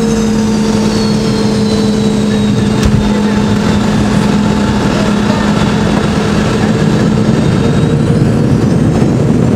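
Cabin noise of a Boeing 717 on its landing rollout, heard over the wing: its rear-mounted Rolls-Royce BR715 engines and the air rush make a steady loud roar, with a high engine whine that slowly falls in pitch and rises again near the end. A single knock about three seconds in.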